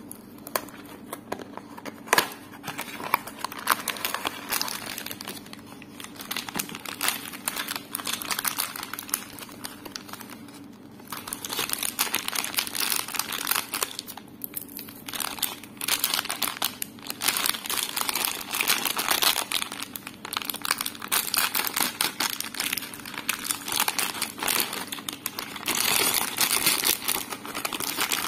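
Plastic packaging crinkling and rustling as hands pull a wrapped minifigure pack out of its small cardboard box and then open a clear plastic bag of toy building bricks. The crinkling is irregular and gets busier and louder about halfway through.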